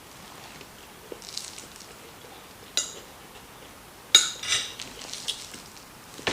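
Cutlery clinking and scraping against a plate of food while eating: a few sharp clinks with a brief ringing, the loudest a little over four seconds in, followed closely by another.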